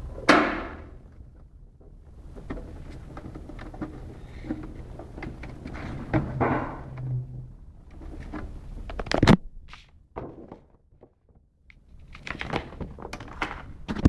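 Hard plastic knocks, clicks and thunks from a USB mini fridge being handled, with a sharp thunk just after the start and another strong knock about nine seconds in.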